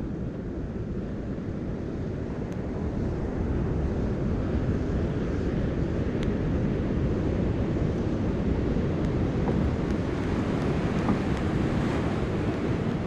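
Wind buffeting the microphone over the steady wash of ocean surf, a continuous low rumble that grows a little louder about three seconds in.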